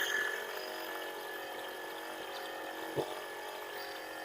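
Repaired e-rickshaw electric motor running steadily with an even whine of many steady tones and no rattle, its magnet recharged and bearing replaced. A single short click about three seconds in.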